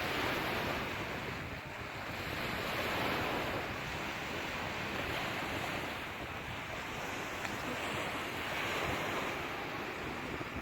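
Sea waves washing onto a shore in a continuous rush of surf that swells and eases every few seconds.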